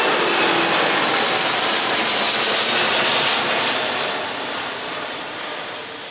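Airbus A330-900neo's Rolls-Royce Trent 7000 turbofans at takeoff thrust as the airliner climbs away just after liftoff: a loud rush of jet noise with a faint falling whine, fading steadily over the last few seconds.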